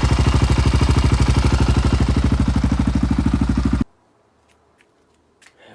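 Yamaha Raptor 660's single-cylinder four-stroke engine idling with an even, rapid pulse. It runs smoothly after its carburettor fuel screws were readjusted. The sound cuts off abruptly about four seconds in, leaving only a few faint clicks.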